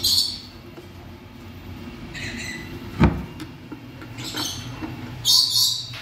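African grey parrot in its nest box giving short, harsh, high-pitched calls, four times, the last the loudest. A sharp knock comes about three seconds in.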